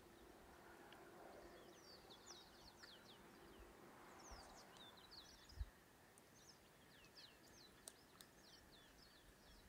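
Faint chirping of small birds: a long string of short, quick notes that sweep downward. A brief low thump about halfway through.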